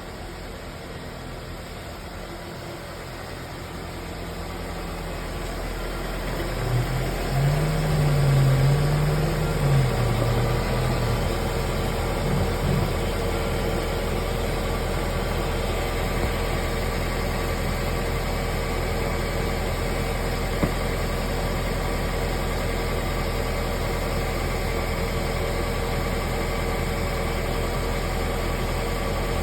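Car running with a steady low hum that builds over the first few seconds, with a brief wavering low tone about seven to ten seconds in. The humming is the complaint that was traced to a worn front right wheel bearing.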